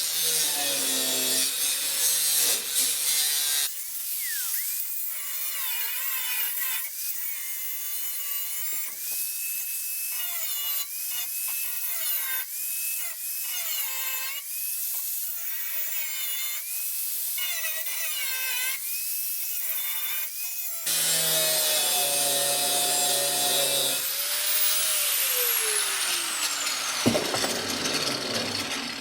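Electric cutting tool running through metal tubing, its motor pitch dipping and recovering over and over as the blade bogs in the cut. Near the end the motor is released and winds down with a long falling whine.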